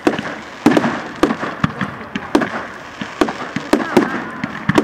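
Fireworks going off: an irregular string of sharp bangs and crackles, about two or three a second.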